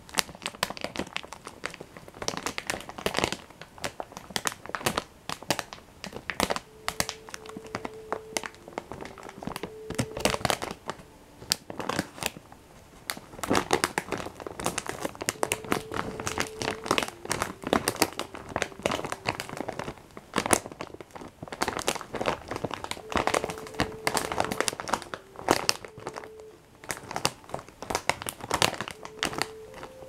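Crinkly plastic biscuit packet being crumpled and handled, a dense, continuous run of crackling rustles.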